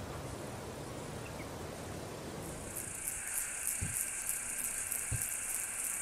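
An insect chirping in a fast, even rhythm of about four high-pitched pulses a second, starting about two and a half seconds in over a steady low rumbling hiss. Two soft low thumps come in the second half.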